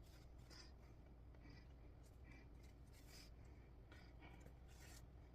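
Near silence over a low room hum, with faint, short, irregular scratches and rustles of a needle and thread being drawn through cross-stitch fabric.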